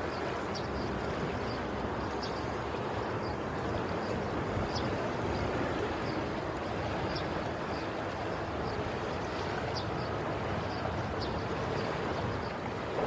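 Sea waves washing steadily onto the shore, a continuous rushing surf with only gentle swells in level. Faint short high chirps come now and then.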